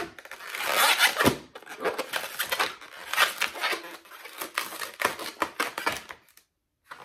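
Inflated latex modelling balloon being twisted and handled: irregular squeaking, rubbing and creaking of the latex in repeated bursts, which stop briefly near the end.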